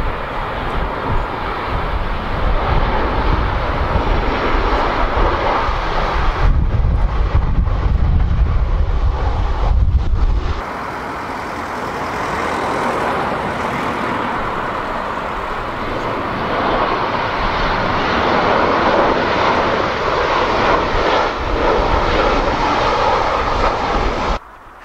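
Jet engines of a Ryanair Boeing 737 on final approach, a steady rushing noise that grows somewhat louder as the airliner comes nearer. For the first ten seconds or so wind buffets the microphone with a low rumble. The sound cuts off suddenly just before the end.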